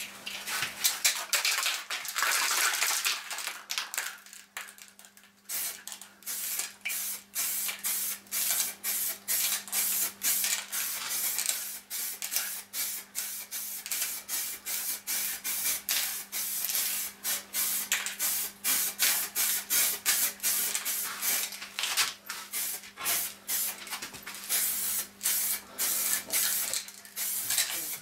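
Aerosol spray-paint can hissing: one long spray for the first four seconds, then after a short pause a run of quick short bursts, about two a second.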